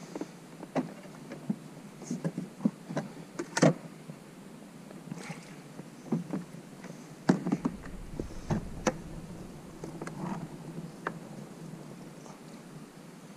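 Irregular knocks, taps and clunks of fishing gear being handled in a kayak, the loudest a little under four seconds in and another about seven seconds in.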